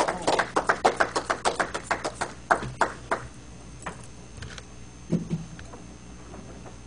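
A small audience clapping, the claps thinning out and dying away about three seconds in, leaving quiet room tone.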